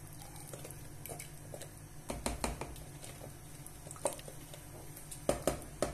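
Tomato purée squeezed from a pouch into a pot of simmering soup: soft squelching and patter, with scattered light clicks and knocks of the pouch and ladle on the pot, the sharpest near the end.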